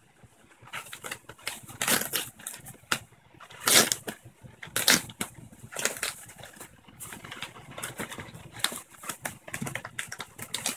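Yellow padded mailer envelope crinkling and rustling as it is handled and torn open, in a run of irregular crackles and rips.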